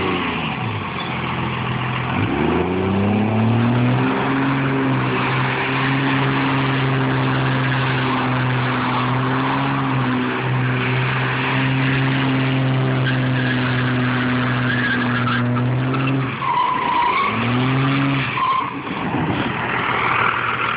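A Dodge Ram's 5.9-litre 24-valve Cummins turbo diesel revs up about two seconds in and is held high and steady while the tyres spin and squeal with a constant hiss. The revs drop about sixteen seconds in, surge once more briefly, and fall back.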